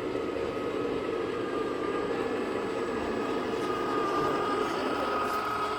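A 1/14 scale RC model truck or construction machine running: a steady whine that slowly rises in pitch over a constant mechanical hum.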